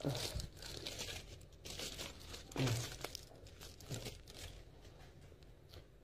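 Chocolate packaging crinkling as it is handled close to the phone's microphone, in several bursts that die down in the last second or so. Two brief low sounds stand out, the louder about two and a half seconds in.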